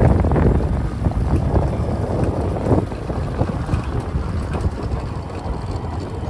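Wind buffeting the microphone: a gusty, rumbling noise, strongest at the start and easing slightly after about a second.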